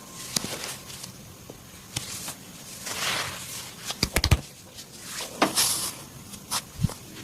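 Hand massage sounds: rubbing strokes with scattered sharp clicks, a quick run of loud clicks about four seconds in, and a low thump near the end.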